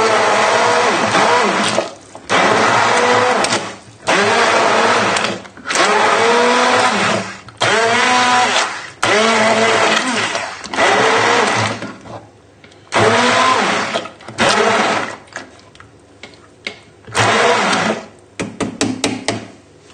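Handheld stick blender whirring in a saucepan of chunky vegetable soup, run in repeated bursts of a second or two that get shorter and quicker near the end. It is partly puréeing the vegetables and broth to thicken the soup while leaving chunks.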